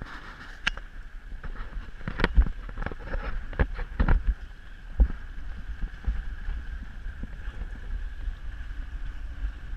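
Maxus 24 sailboat running downwind in a fresh breeze: water rushing along the hull with steady wind rumble on the microphone, and several sudden bangs between about two and five seconds in.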